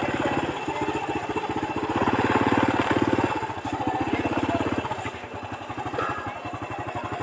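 Small motorcycle engine running at low revs, a rapid, even putter that grows louder between about two and three seconds in and eases off over the last couple of seconds.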